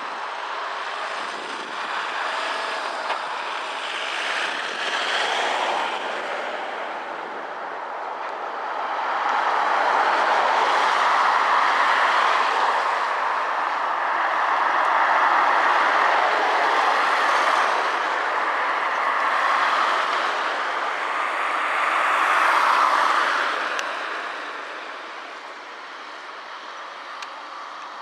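Road traffic going by close at hand: the tyre and engine noise of a run of cars swells and fades in waves, loudest through the middle, easing off about four seconds before the end.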